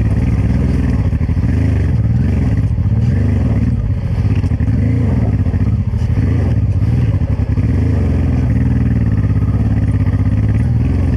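Honda Transalp 600's V-twin engine pulling the motorcycle up a steep, rocky dirt trail, the revs rising and falling over and over as the throttle is worked.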